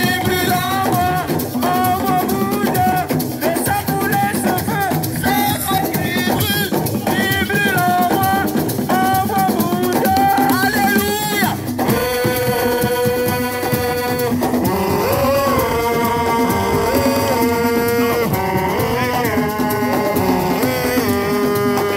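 Music: singing over percussion, the voice sliding and wavering in short phrases; about twelve seconds in it gives way to a melody of long held notes that step up and down.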